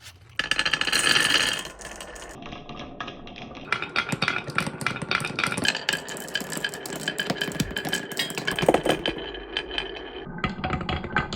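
Marbles rolling and clattering down a wooden HABA marble run: a dense, rapid rattle of clicks with ringing metal chime tones mixed in, starting suddenly about half a second in.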